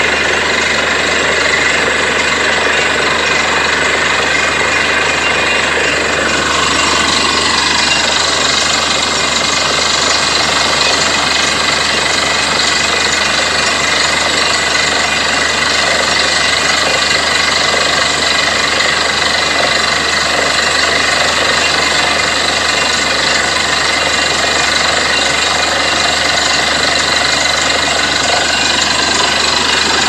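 Borewell drilling rig at work: a loud, steady mechanical din of engine and fast rapid hammering.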